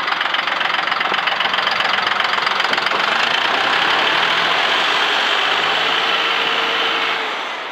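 John Deere 5055E tractor's three-cylinder turbo diesel idling steadily, heard close to the engine bay, with a dense, rapid diesel clatter. It gets a little quieter near the end.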